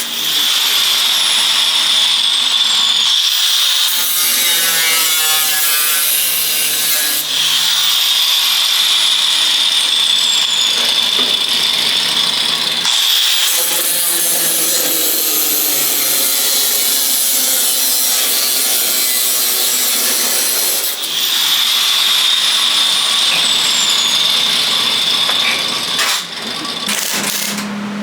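A high-speed power tool cutting or grinding the truck cab's sheet metal, with a steady high whine in three long runs and rougher scraping between them.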